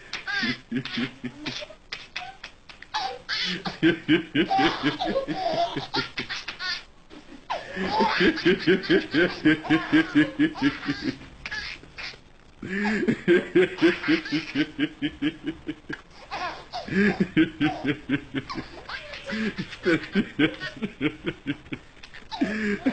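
High-pitched laughter in long bouts of quick, evenly pulsed ha-ha-ha, about four or five pulses a second, with brief pauses for breath between bouts.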